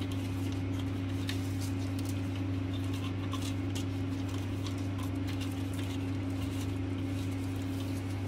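Steady low electrical hum, with faint scattered ticks and rustles of satin ribbon being handled and untwisted by hand.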